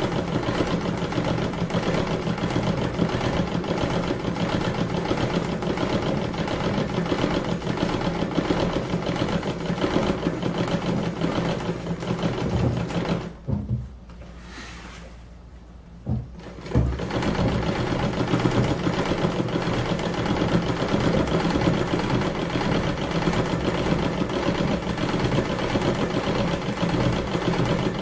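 Treadle sewing machine running steadily, doing free-motion stitching. It stops for about three seconds about halfway through, then starts again.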